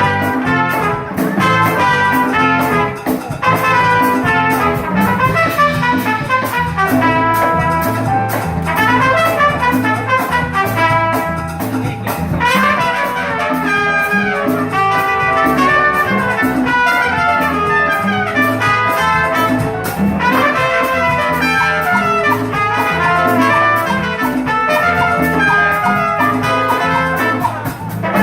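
Trumpet playing a jazzy melody live over instrumental accompaniment with a steady bass line.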